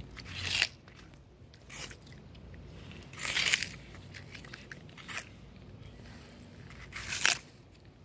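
Sulcata tortoise biting into watermelon, about five separate wet crunches a second or two apart.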